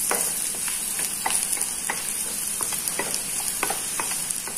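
Chopped garlic and ginger sizzling in butter in a frying pan, with a steady high hiss. A wooden spatula stirs them, scraping and knocking against the pan in short strokes about every half second.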